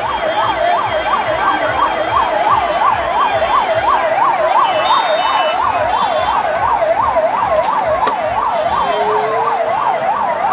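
Vehicle's electronic siren in fast yelp mode, its pitch sweeping up and down about three times a second, over the noise of a large street crowd.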